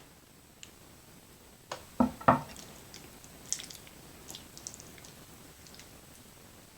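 Close-miked eating of creamy cheesy chicken fettuccine alfredo: two loud knocks about two seconds in, then soft, wet chewing clicks.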